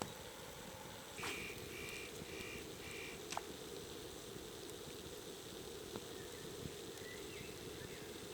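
A bird calling four short, evenly spaced high notes, over a steady low rushing background. Two sharp clicks come about a second in and just after the calls, with fainter chirps later on.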